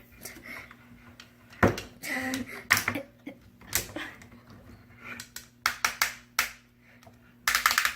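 Hard plastic action-figure parts being handled: a string of sharp clicks and taps, several in quick succession, then a short rattling burst near the end.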